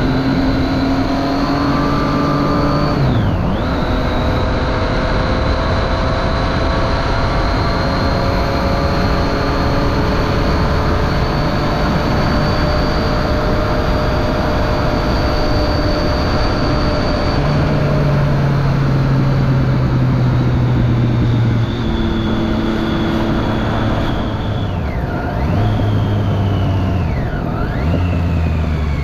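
Triumph Street Triple 675's inline three-cylinder engine through a Remus Hypercone exhaust with its dB killer fitted, pulling under acceleration while riding. Its note climbs slowly, drops sharply at gear changes about three seconds in and twice near the end, and settles lower for a few seconds about two thirds of the way through, over a steady rushing noise.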